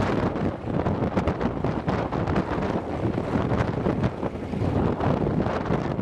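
Antonov An-2's nine-cylinder radial engine (ASh-62IR) running at a steady level with an uneven, popping texture, mixed with wind buffeting the microphone.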